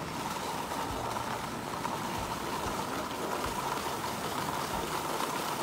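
Steady hiss and scrape of touring skis sliding over firm, groomed piste snow on a downhill glide.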